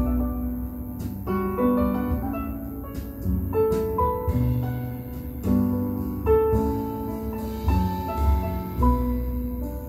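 Instrumental music led by piano, with notes struck about every half second to second over a deep bass.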